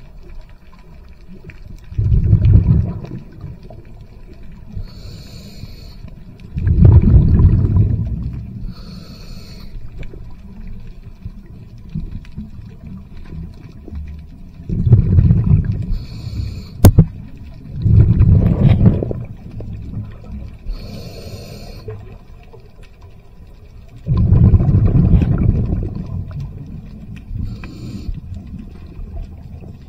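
Scuba diver breathing through a regulator underwater: five long rumbling bursts of exhaled bubbles, with fainter inhalation hisses between them. One sharp click sounds about two-thirds of the way in.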